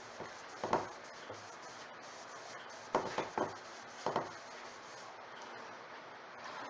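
A few short, irregular rubbing strokes on a wooden clock case, a cluster of them about three seconds in, as Howard's Restor-A-Finish is worked into the old finish.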